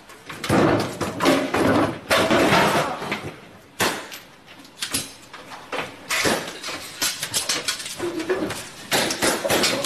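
Stunt performers falling down an escalator: a long clatter of thuds and knocks as bodies tumble against the metal steps. One fall runs through the first few seconds and a second starts about six seconds in.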